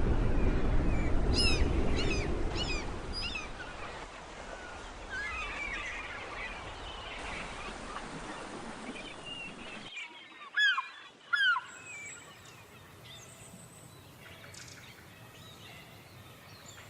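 Water birds calling at a lake: short, sharp calls that fall in pitch, given in quick series, with chattering calls between. Two loud falling calls come about ten seconds in. A low rushing noise fades out over the first few seconds.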